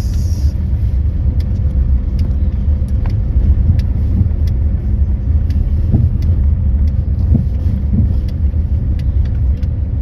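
A car driving along a road: a steady low rumble of engine and tyres, with scattered light ticks and rattles.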